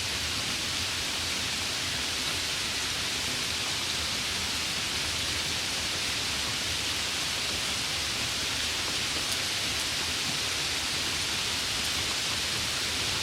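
Steady summer rain falling, an even, unbroken hiss.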